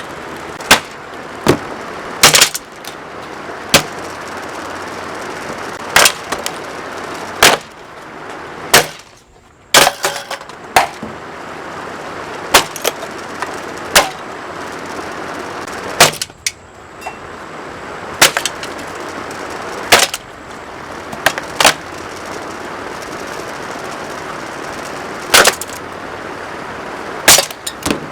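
Lasko box fan being smashed: a string of sharp, loud cracks and impacts, irregularly one to two seconds apart, over a steady rushing noise that cuts out briefly twice.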